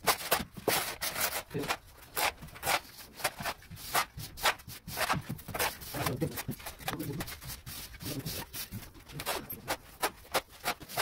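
Hand trowel and metal straightedge scraping and dragging through damp, gritty cement screed mix while leveling a floor, in quick, irregular repeated strokes.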